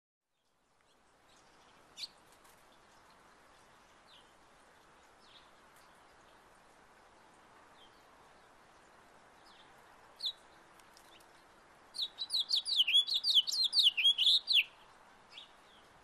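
Male house finch singing one rapid warbling song of about two and a half seconds, starting about three-quarters of the way in. Scattered single chirps come before and after it, over faint steady background noise.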